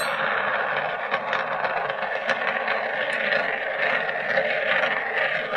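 Marbles rolling round and round a clear plastic funnel bowl of a marble run: a steady rolling noise with scattered light clicks.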